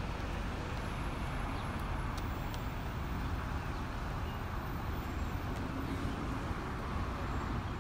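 Steady outdoor road-traffic noise, an even low rumble and hiss with no distinct events.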